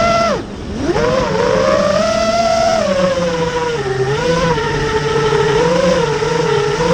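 FPV racing quadcopter's brushless motors and propellers whining. The pitch drops sharply as the throttle is cut about half a second in, climbs back within a second, then wavers up and down with the throttle.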